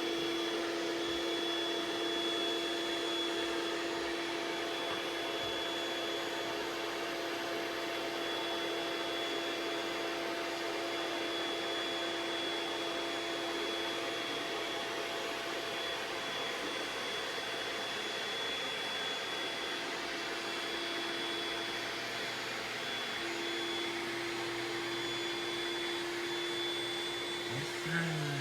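Built-in electric air pump of an Intex air mattress running steadily, a constant whirring hum, as it inflates the mattress.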